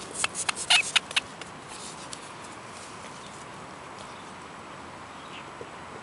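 A quick cluster of sharp rustles and clicks close to the microphone in the first second or so, then only a steady faint hiss.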